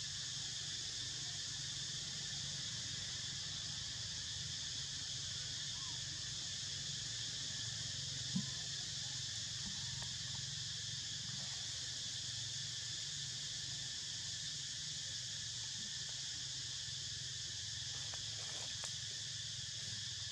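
Steady chorus of insects shrilling in the forest, several high buzzing tones held without a break, over a low steady hum. One brief soft knock about eight seconds in.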